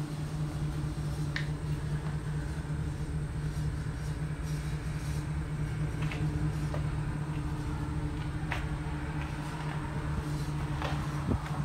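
Steady low hum of an idling engine, with a few sharp clicks scattered through it.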